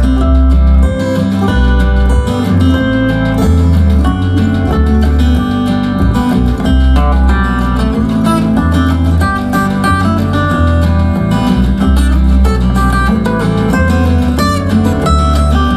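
Music played through a TCL S642W 2.1 soundbar and its subwoofer: plucked and strummed guitar over a heavy, pulsing bass line.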